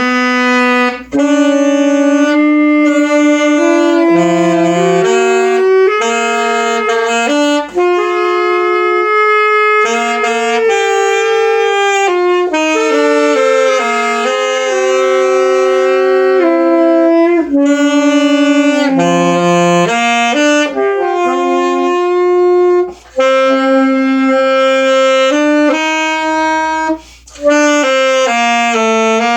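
Saxophone playing a slow melody of held, steadily changing notes, with a few short breaks for breath. It is being practised.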